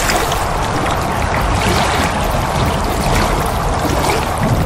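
Steady rush of splashing, pouring water, a sound effect laid under an animated water-splash logo.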